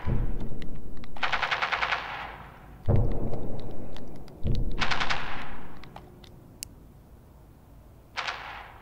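Rapid automatic gunfire from a shooting video game. It comes in three long bursts of quick shots over the first six seconds, then a short burst near the end.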